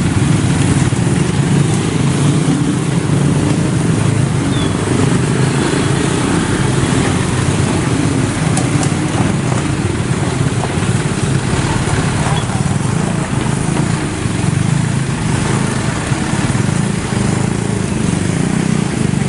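Small motorcycle and scooter engines running past in a steady stream of traffic, with a car engine among them.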